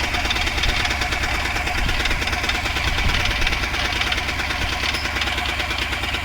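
Freshly overhauled Mahindra Jeeto diesel engine idling steadily after its timing has been set. It runs evenly, in the state the mechanic calls smooth and silent, with no vibration.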